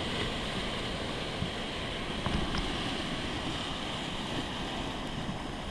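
Sea surf washing around shoreline rocks, with wind buffeting the microphone.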